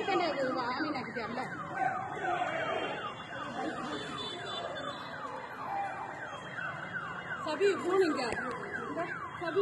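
An electronic siren sounding in quick falling sweeps, about three a second, with voices calling out over it and louder shouts near the end.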